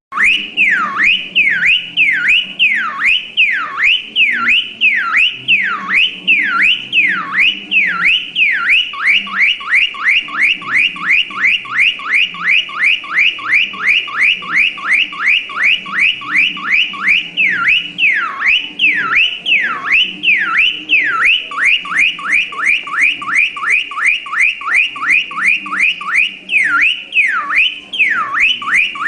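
Electronic car alarm siren sounding in its cycling pattern: loud falling whoops, about two a second, switch to a faster chirping run of four or five sweeps a second and back again, several times.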